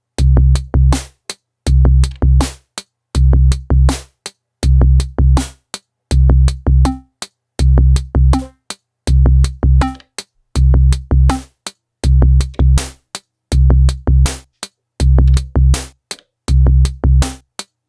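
Elektron Digitone FM synthesizer playing an electronic drum pattern: clusters of heavy low kick hits with sharp clicks and hi-hat ticks, the loop repeating about every one and three-quarter seconds. From about a third of the way in, a short high blip joins each bar.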